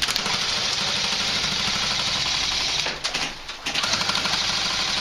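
Airsoft rifle firing on full auto, a fast mechanical rattle in two long bursts with a short pause a little after halfway.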